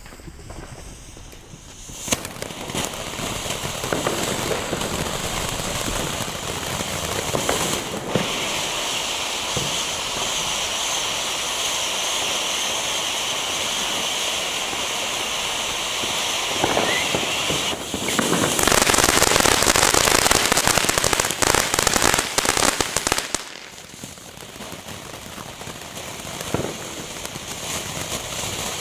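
Weco Gunpowder Barrels ground fountain spraying sparks: a steady hiss with crackling that starts about two seconds in. Past the middle it grows louder and crackles harder for about five seconds, then drops back and goes on more quietly.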